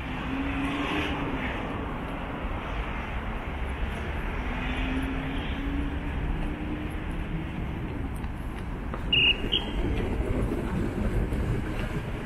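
Steady road traffic on a multi-lane city avenue, a continuous rumble of passing vehicles, with a humming tone from a vehicle going by at the start and again about five seconds in. Two short high-pitched blips come about nine seconds in.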